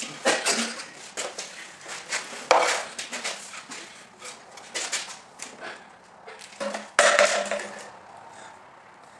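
A chamois cloth wiped and scrubbed across a hard countertop: a run of rubs, scuffs and knocks, loudest about a quarter second, two and a half and seven seconds in, then quieter near the end.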